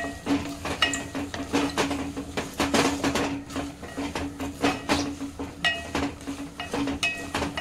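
Wooden spoon stirring cashews and almonds through hot oil and whole spices in an aluminium pot, with irregular scraping and knocking against the pot and a few short metallic rings, over a steady low hum.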